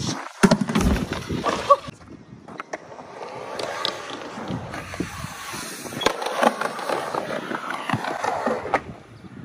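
Skateboard on a mega ramp: two sharp board impacts in the first two seconds, then the wheels rolling down the Skatelite-surfaced ramp, growing louder with scattered clicks.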